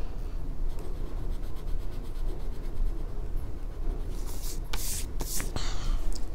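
Pencil scribbling on paper in quick back-and-forth strokes, shading in a small drawn triangle, with a few louder scrapes a little past the middle.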